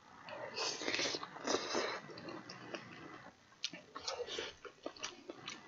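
A person slurping a mouthful of glass noodles from budae-jjigae in two loud slurps in the first two seconds, then chewing with scattered wet mouth clicks.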